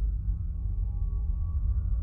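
Eerie ambient soundtrack music: a steady deep drone with faint held tones above it.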